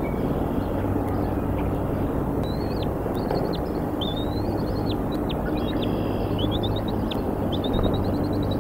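Bald eagles calling: high, thin whistled calls and chattering notes, starting a couple of seconds in as the mate lands on the nest and ending in a rapid run of short notes, over a steady low rumble.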